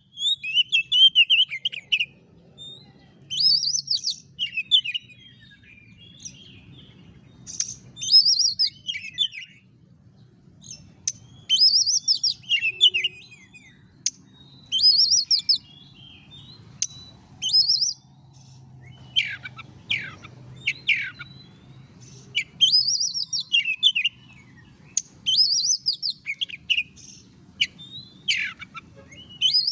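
Oriental magpie-robin (kacer) singing vigorously: loud, varied phrases of whistles and rapid chatter, repeated every two or three seconds, over a faint steady high tone.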